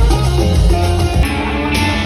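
Music with guitar over a heavy bass beat; the bass drops back about a second in.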